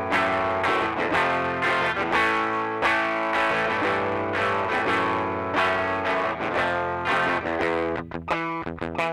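Electric guitar played through a Rocktron Austin Gold overdrive pedal at a low drive setting, giving a light overdriven tone. Chords are struck in a steady rhythm, breaking into quicker, choppy strokes near the end.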